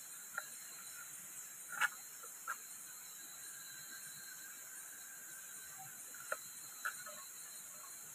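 A knife chopping through long beans onto a small wooden block: about five short, sharp chops at uneven intervals, the loudest just under two seconds in. Behind them runs a steady high-pitched hiss of night insects.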